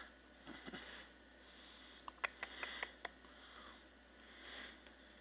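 Faint close sniffing and breathing, with a quick run of about half a dozen sharp clicks about two seconds in.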